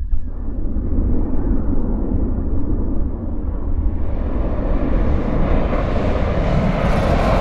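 Air rushing over the camera of a rocket payload descending under its parachute: a steady low rumble, with a hiss that grows louder and higher from about three seconds in.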